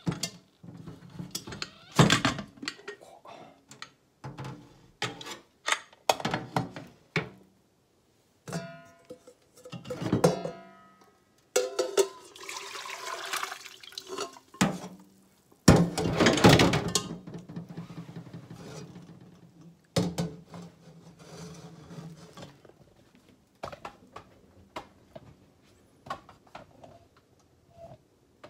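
Metal clanks and knocks as an aluminium pressure cooker and a stainless stockpot are handled in a steel sink. Near the middle, liquid pours and splashes twice for a couple of seconds as the cooked pork cartilage and its liquid are tipped from the pressure cooker into the pot.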